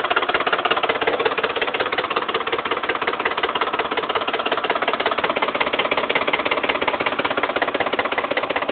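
2008 Ford F-150's 5.4-litre V8 idling with a steady, rapid knock, heard with the hood open; it sounds like an old diesel tractor. The owner suspects the oil pump or a timing fault.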